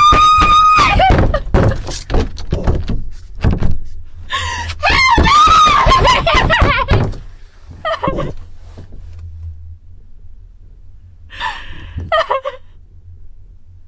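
A woman screaming in two long, high cries amid thuds and knocks of a struggle, then a few short gasping cries as it quietens near the end.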